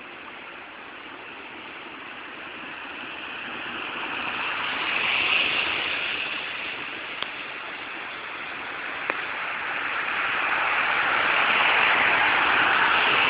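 Street traffic: cars passing, their engine and tyre noise swelling to a peak about five seconds in, then building again from about ten seconds on and staying loud.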